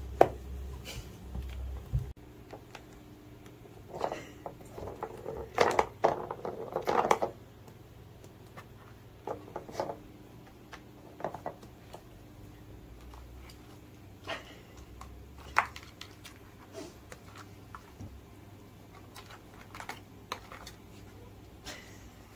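Cats playing with a plastic cat ball-track toy: scattered clicks and knocks of paws and the ball against the plastic track. A cluster of louder rattling and scuffling comes about four to seven seconds in.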